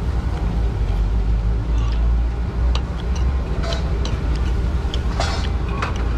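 Knife and fork clicking and scraping against a cast-iron steak hot plate, a dozen or so short clicks, over a steady low rumble.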